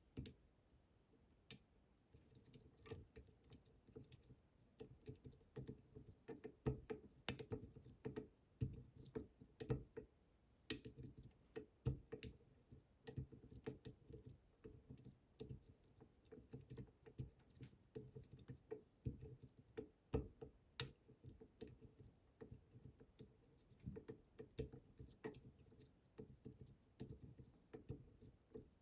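Quiet, irregular small clicks and taps of a lock pick pushing and setting the pins of a Bramah-style pump lock one by one, over and over.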